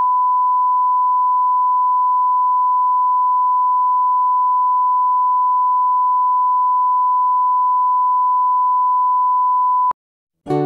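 Broadcast colour-bars line-up tone: a single steady, pure 1 kHz test tone that cuts off suddenly just before the end. A moment later, right at the end, guitar music begins.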